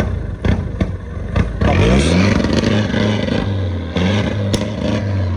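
Peugeot 308 diesel engine with a Stage 1+ tune, heard through its full stainless-steel exhaust line as it is revved: the pitch climbs about a second and a half in, holds, and climbs again briefly near the end. Short sharp ticks are heard before the first rev.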